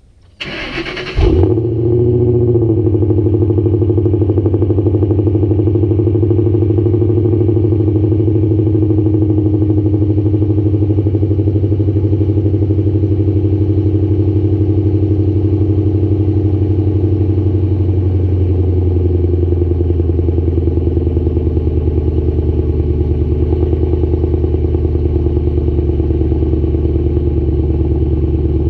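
2007 Ford Mustang cold start: the starter cranks briefly, the engine fires about a second in with a flare of revs, then settles into a steady, loud idle.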